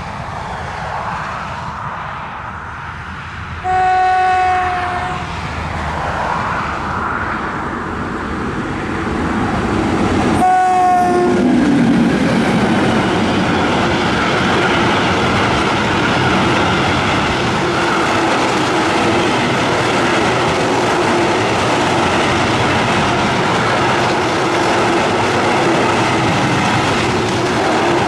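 Class 92 electric locomotive sounds its horn twice, short blasts about four and about ten seconds in; the second drops in pitch as the locomotive passes. Then a long container freight train rolls by with a steady rumble of wagon wheels clattering over the rails.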